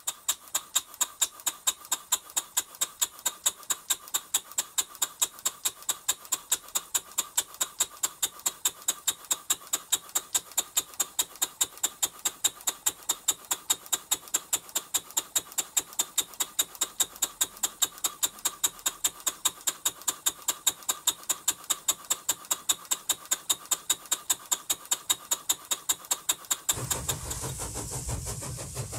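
Stuart 5A model steam engine running steadily, with an even, rapid beat of about four sharp beats a second. Near the end the beat gives way to a steady noise with a low rumble.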